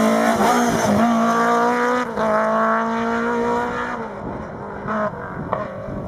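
Rally car engine at full throttle on a tarmac stage, its note breaking briefly at gear changes about one and two seconds in and climbing again after each. It drops away after about four seconds as the car pulls off into the distance.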